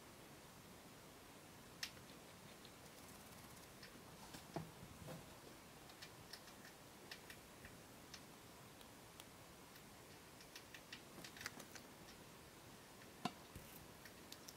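Faint, irregular small clicks of a degu nibbling a treat held between fingers, with a few sharper clicks scattered through.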